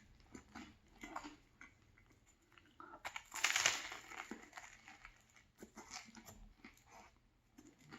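Close-up chewing and biting into a banh mi sandwich on a crusty baguette, with small crunches and wet mouth clicks. About three seconds in comes a louder crackling crunch lasting under a second.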